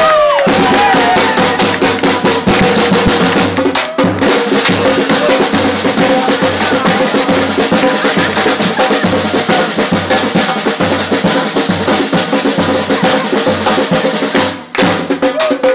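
Live samba drumming: surdo bass drums and other stick-played drums keep a fast, dense rhythm over a steady low beat. The drumming breaks off briefly about four seconds in and again near the end.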